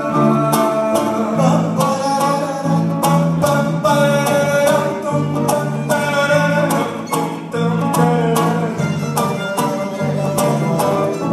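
Live band music: strummed acoustic guitar over a repeating electric bass line, with a sustained melody line above.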